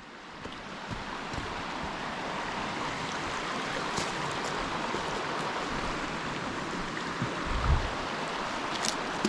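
Creek water rushing and babbling steadily over rocks, with a brief low thump a little past three-quarters of the way in.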